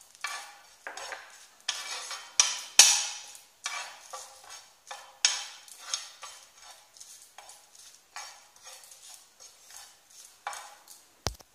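Metal spoon stirring and scraping cumin seeds, dried red chillies and ground coriander across a flat griddle (tawa) as they dry-roast on low flame: a run of short, gritty scrapes, with a sharp knock about three seconds in and another near the end.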